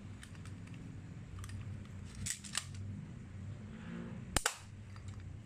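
Light mechanical clicks from a spring-type airsoft Beretta 92-style pistol being handled, with a cluster of clicks a little past two seconds in. A sharp double click about four and a half seconds in is the loudest.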